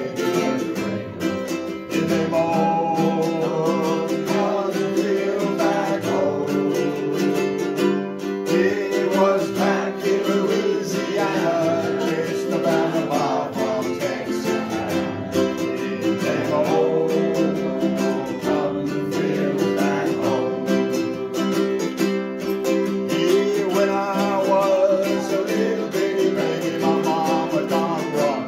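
Ukuleles strummed together, playing a song in a steady rhythm.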